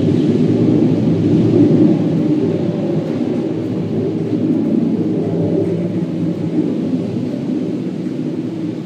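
Loud, low droning rumble from the sky, with several steady tones layered in it, slowly growing fainter. Its source is unexplained, and the recorder does not take it for a passing airplane.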